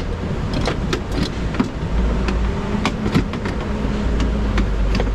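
Scattered light metallic clicks and knocks of a car window regulator being handled and worked into place inside a bare door frame. A steady low hum comes in about two seconds in and runs under them.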